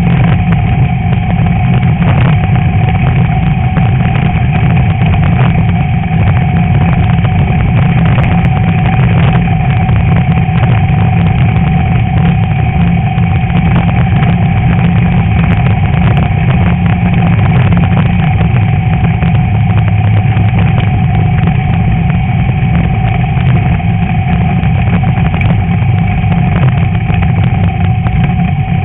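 VW Beetle's air-cooled flat-four engine running hard at a steady pace in off-road racing, with frequent small knocks and rattles from the car over rough ground.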